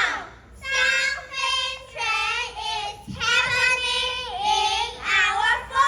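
A child singing in a high voice, in short sung phrases about a second long.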